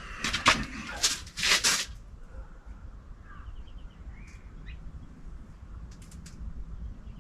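A quick run of loud knocks and rattles over the first two seconds, then quieter, with faint bird chirps and a couple of light clicks about six seconds in.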